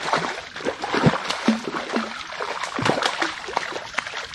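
A hooked tarpon thrashing at the surface on the line, throwing repeated irregular splashes of water.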